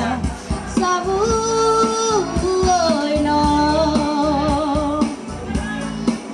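A woman singing into a microphone over a karaoke backing track, amplified through a portable PA speaker, with long held notes and vibrato on some of them.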